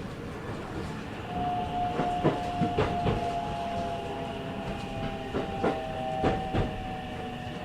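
Interior running sound of a JR 313-series electric train: the wheels click over rail joints while the traction motors' whine sets in about a second in and slowly falls in pitch as the train slows.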